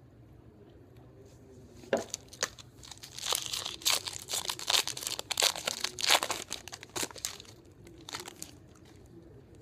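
Foil wrapper of a Topps Finest baseball card pack being torn open and crinkled by hand. A single sharp crackle comes about two seconds in, then a dense run of crinkling for several seconds, and a few last crackles near the end.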